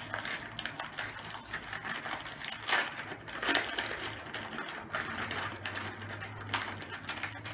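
Crinkly plastic snack wrapper being torn open and handled: a dense run of crackles and rustles, with two louder rips about three seconds in.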